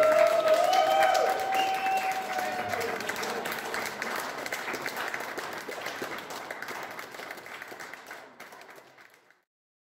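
Wedding guests applauding, with a few cheering shouts over the first few seconds. The applause dies away steadily and cuts off about nine seconds in.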